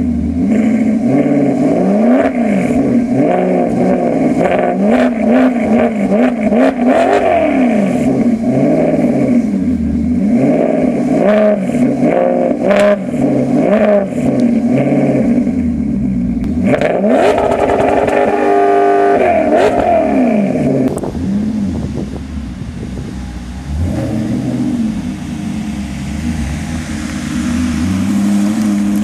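Maserati GranTurismo MC Stradale's 4.7-litre V8 on its stock exhaust, revved over and over: quick rises and falls in pitch, with a longer steady high rev about two-thirds through, then lower, slower revs near the end.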